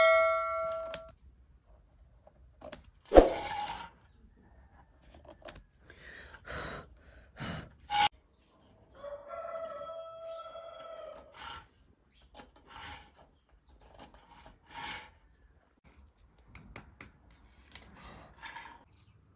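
A rooster crowing: the end of one crow at the start, and a second, fainter crow of about two seconds roughly ten seconds in. Scattered sharp knocks and rustles in between, the loudest a single knock about three seconds in.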